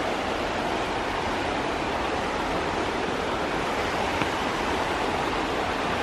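Steady rush of falling water, an even roar without pauses.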